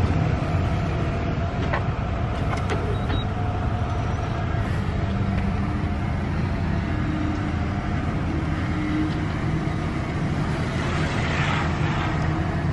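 A vehicle engine idling steadily, a low even hum.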